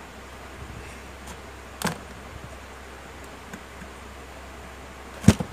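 A pry tool working around the edge of a Redmi 8A's plastic back cover to open the phone: short sharp plastic clicks, one about two seconds in and a louder one near the end, with a few fainter ticks over a steady background hiss.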